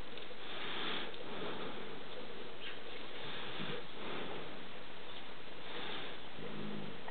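Terrier puppy sniffing and snuffling in short noisy puffs at a German Shepherd's face during play, over a steady hiss, with a short low pitched sound near the end.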